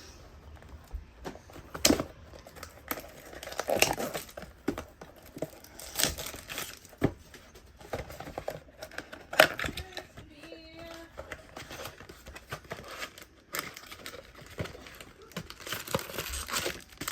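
A trading-card pack wrapper being torn open and crinkled, with cards handled in irregular rustles and sharp clicks.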